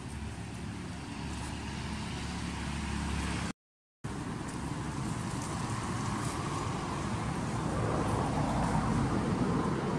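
Steady low outdoor rumble, like distant engine or traffic noise, cut by a brief silent gap about three and a half seconds in and growing a little louder near the end.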